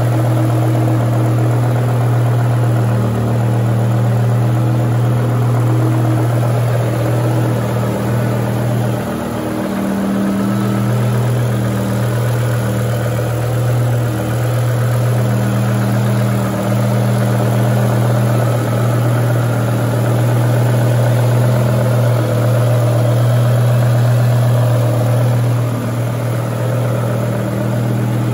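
BMW M6 E63's V10 engine running steadily through an aftermarket Kreissieg F1 exhaust: an even, deep drone that wavers briefly about nine seconds in.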